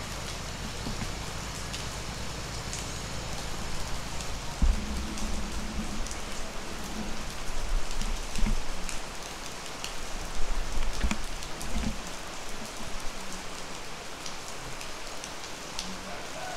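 Steady rain falling, an even hiss with scattered drops ticking close by. A few dull low thumps come through the middle of the rain.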